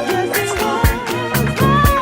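Instrumental soul-funk music with a steady beat: crisp cymbal hits, a repeating bass line and a wavering high melody line, without vocals.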